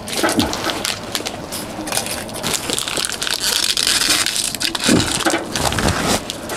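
Dense crunching and crackling, close to the microphone, louder in the middle.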